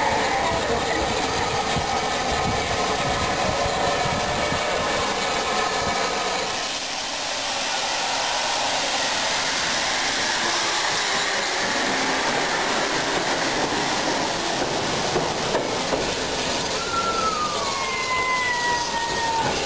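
Steam locomotive running slowly past with steam hissing. A set of steady ringing tones sounds for the first few seconds, and near the end a squeal slides down in pitch as the engine runs into the platform.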